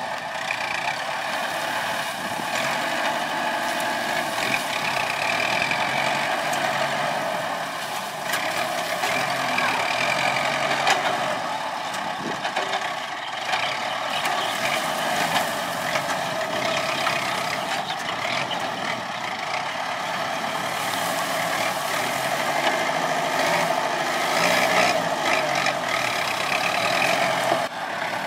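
Kubota farm tractor's diesel engine running steadily while it drives and works its hydraulic sugarcane grab loader.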